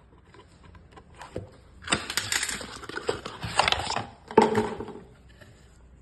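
Packaging and small product bottles being handled: scattered clicks, then about three seconds of crinkling and rustling with sharp ticks from about two seconds in.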